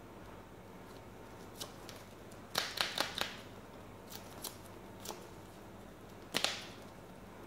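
Playing cards being handled and sorted through the hand: short, sharp snaps and flicks of card stock. There is a quick run of three or four about two and a half seconds in, a few faint ones after it, and the loudest snap near the end.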